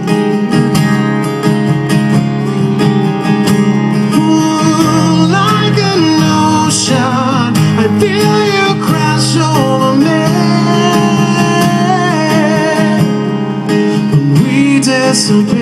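Live rock band playing a slow ballad: guitars holding sustained chords, with a male lead voice singing over them in the middle and again near the end.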